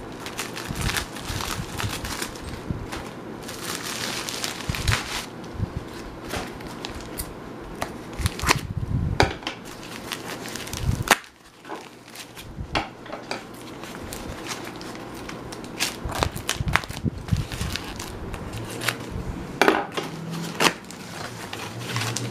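A white padded shipping mailer and the thin foam wrap around a small box being handled and pulled open by hand: irregular crinkling and rustling with many sharp crackles, and a brief lull about halfway through.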